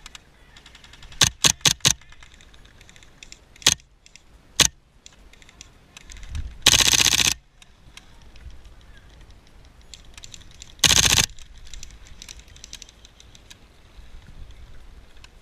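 Airsoft guns firing: a quick string of four shots, two single shots, then two short full-auto bursts of rapid fire, the second near the end, with faint scattered shots from farther off in between.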